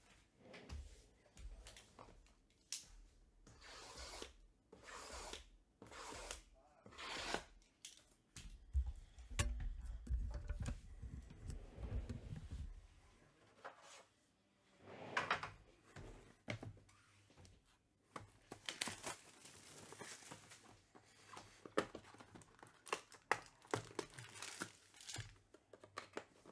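Trading-card box packaging being torn open: tearing and crinkling in repeated short bursts, with dull handling bumps about nine to thirteen seconds in.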